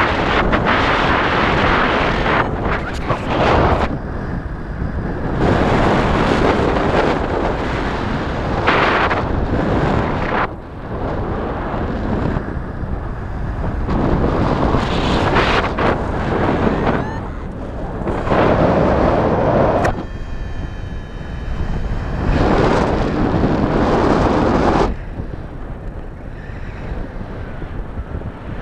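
Wind blasting across an action camera's microphone in flight under a paraglider, loud and gusting in uneven surges and lulls.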